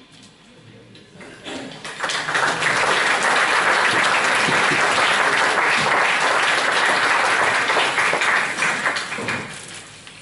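Audience applauding, building up about two seconds in, holding steady, then dying away near the end.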